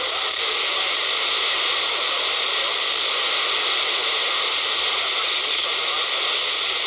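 Steady FM static hiss from a handheld scanner's speaker on 27.78 MHz, the UK FM CB channel, with the weak skip signal sunk in the noise.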